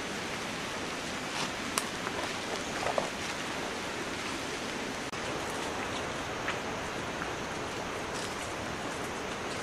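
A steady, even hiss of water in the wet woods, with a few light snaps and rustles of footsteps on the leaf-covered forest floor, the loudest about two and three seconds in.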